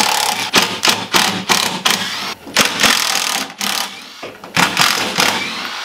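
Cordless drill with a socket running in short, repeated bursts, backing out the bolts that hold a snowmobile's rear bumper and brackets.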